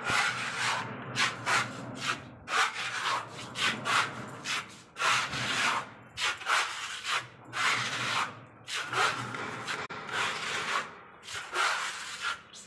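A metal putty blade scraping wall putty across a cement-plastered wall in repeated rasping strokes, roughly two a second.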